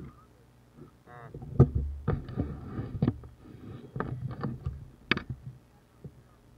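Handling noise from a camera being moved about: an irregular run of knocks, bumps and rustling scrapes starting about a second in, with a short rasp near the start.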